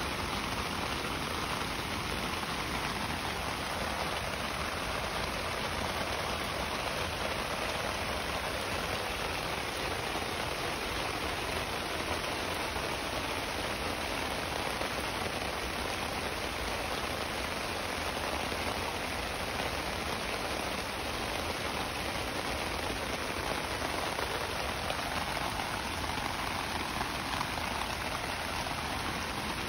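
Heavy rain falling steadily and splashing onto gravel ground covered in standing water.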